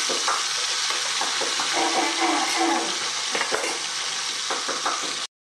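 Fish pieces frying in hot oil in a kadai, sizzling steadily, while a metal spatula clicks and scrapes against the pan as the pieces are turned and lifted. The sound cuts off abruptly just before the end.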